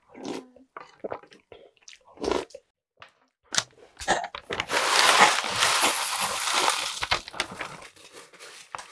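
Chewing and slurping of a mouthful of cereal in milk, then, about four seconds in, corn flakes poured from a Kellogg's plastic bag into a bowl of milk: a loud dry rustling rush lasting about three seconds.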